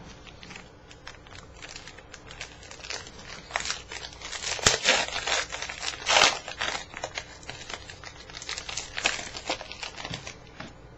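Foil wrapper of a 2012 Panini Prizm baseball card pack being torn open and crinkled by hand. The crackling is irregular, loudest a little past the middle.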